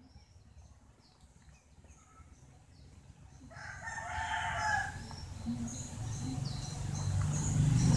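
A rooster crows once, about a second and a half long, a little before the middle, over small birds chirping throughout. A low rumble builds near the end.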